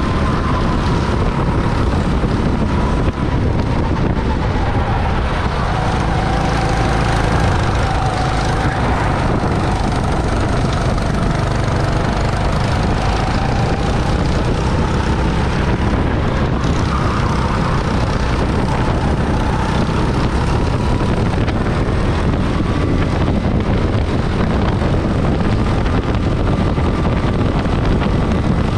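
Rental go-kart running flat out on track, heard onboard: its drone is a steady pitch that drops and climbs again over several seconds as it slows for corners and accelerates out, under heavy wind rush on the microphone.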